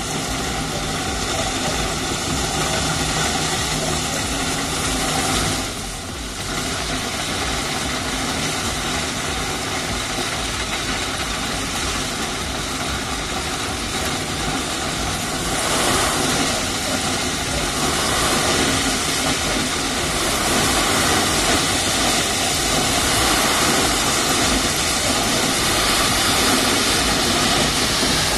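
A heavy machine's engine running steadily under a loud, even rushing noise, rising slightly in level about halfway through.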